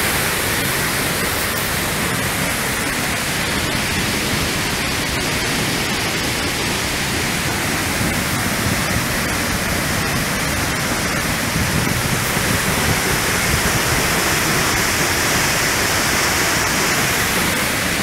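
A tall waterfall (about 72 m high) rushing: an unbroken, steady noise of falling water.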